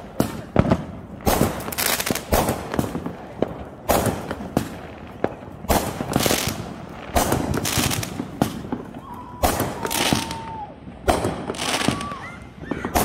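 Aerial fireworks launched from the street and bursting overhead: a rapid string of sharp bangs and crackles, about one to two a second, with a drawn-out whistle about two-thirds of the way through.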